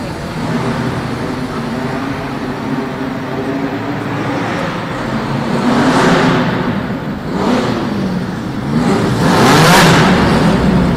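Historic front-engined racing car engines running and revving as the cars drive past, swelling about halfway through, again a second later, and loudest near the end as a red single-seater passes close by, the pitch rising and falling with the throttle.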